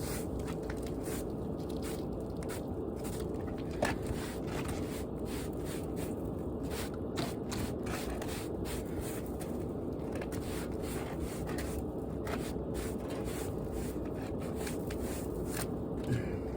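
Irregular scraping strokes over a steady low hum.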